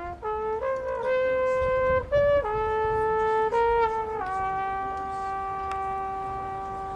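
A single wind instrument from a marching band plays a slow solo melody of about eight notes that step up and down, then holds one long, lower note for the last few seconds.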